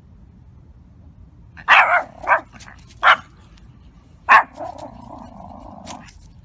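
A small Pomeranian barking: four short, sharp barks about a second apart, then a longer drawn-out sound lasting about a second and a half.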